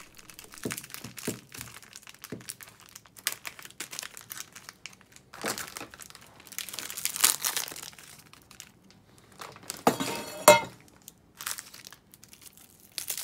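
Thin plastic wrap crinkling and rustling in irregular bursts as it is snipped with scissors and peeled off a frozen block of udon noodles. A louder clatter with a short ring comes about ten seconds in.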